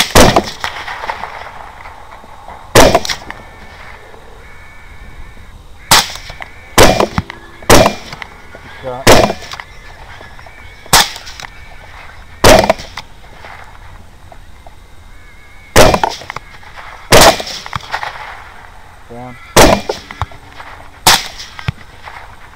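Suppressed 6.5 Grendel AR-15-style rifles firing in turn at hogs: about a dozen loud, sharp shots one to three seconds apart, each with a short echo.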